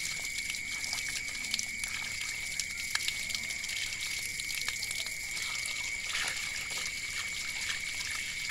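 A stream of running water pours over hands and a scraped snake carcass being rinsed clean, splashing onto a stone floor, with small scattered splashes and ticks. A steady thin high-pitched tone runs underneath.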